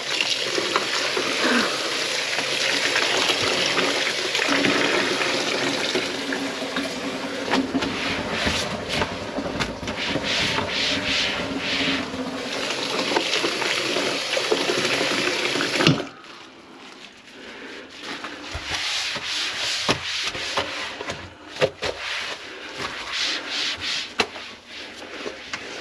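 Electric drain-cleaning machine running, its spinning cable rubbing in the drain line with a steady hum, then switched off abruptly about two-thirds of the way through. After that, scattered clicks and scrapes as the cable and machine are handled.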